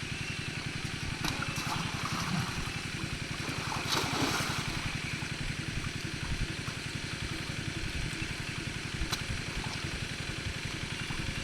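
Small engine running steadily, with water splashing and gurgling and a louder splash about four seconds in.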